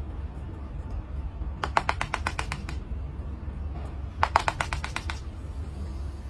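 Two bursts of rapid sharp tapping or clicking, about nine taps a second and each lasting about a second, over a steady low hum.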